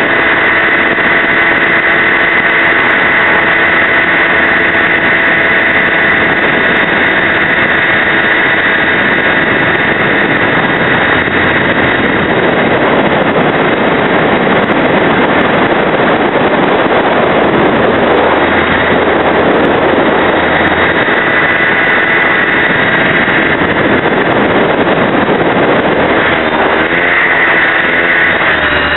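Align T-Rex 550E electric RC helicopter in flight, heard from an onboard camera: a loud, steady motor-and-gear whine over rotor noise. A rushing noise swells through the middle, and the pitch wobbles over the last few seconds as the helicopter flips over.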